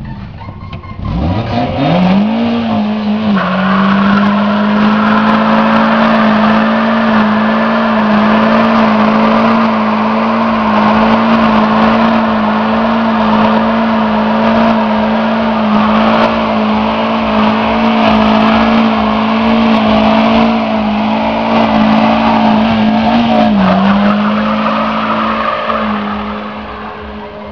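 Car burnout: the engine revs up about two seconds in and is held at steady high revs while the spinning tyres squeal on the asphalt. The revs dip briefly near the end, and the sound then fades as the car moves off.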